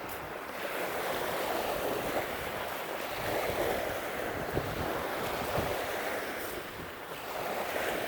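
Lake waves washing onto a rocky shore, a steady surf that swells and eases, dipping a little near the end. Wind buffets the microphone underneath.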